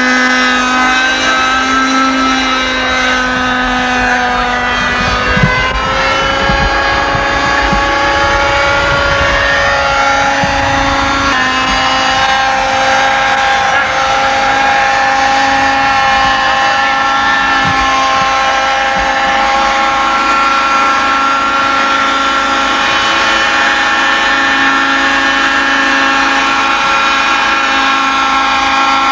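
Engine and rotor of a Robbe Ecureuil radio-controlled model helicopter in flight, a steady buzzing whine. Its pitch falls and rises between roughly four and twelve seconds in, then holds steady for the rest.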